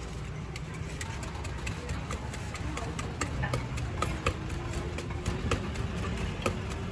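A wooden pestle pounding shredded green papaya in a clay mortar to make Thai papaya salad. The sharp knocks come about three a second and grow louder about halfway through.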